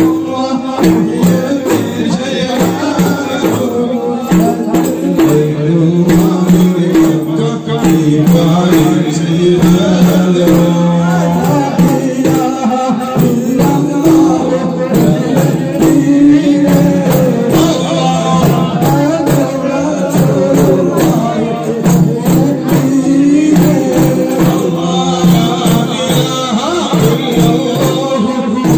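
Rifai rateeb performance: many daff frame drums beaten together in a steady, driving rhythm, with a group of men chanting in unison over the drums.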